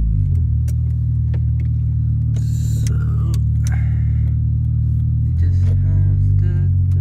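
2005 Honda Accord's 2.4-litre four-cylinder engine running just after start-up as the car pulls away, heard from inside the cabin. Its pitch rises about a quarter of a second in and drops back a little past five seconds.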